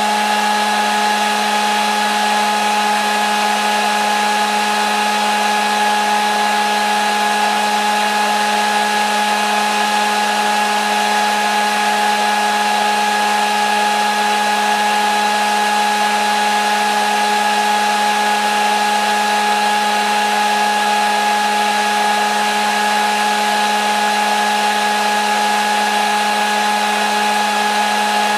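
Hair dryer running steadily: an even blowing hiss with a constant high motor whine, never changing.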